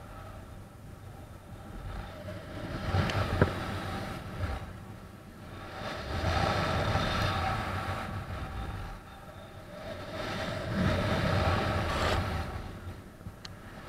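Wind rushing over the camera microphone of a paraglider in flight, rising and falling in three swells, with one sharp tap about three seconds in.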